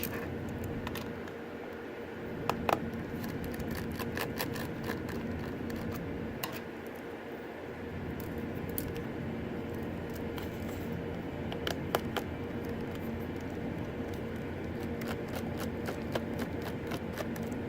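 Scattered small clicks and taps of a precision screwdriver working tiny screws out of a laptop battery, with a few clustered near the end, over a steady low hum.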